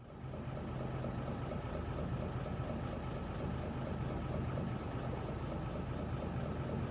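Fishing boat's engine running steadily with a low, even hum, fading in at the start.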